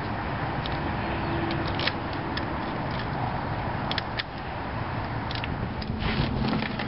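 Steady background rumble like distant road traffic, with a few light clicks and taps scattered through it.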